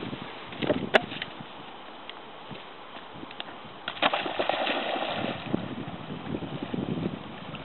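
A dog splashing as it bounds into shallow river water and starts swimming, the splashing strongest for about a second and a half near the middle. A single sharp click about a second in.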